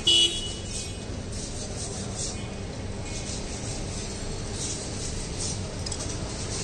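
Roadside market ambience: a steady background din of street and stall noise, with a short, loud clink right at the start.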